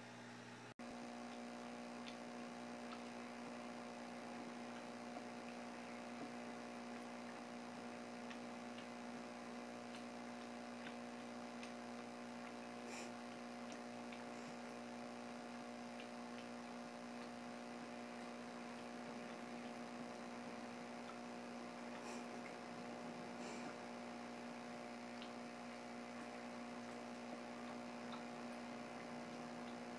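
Steady electrical hum that comes in about a second in, with a few faint ticks scattered through it.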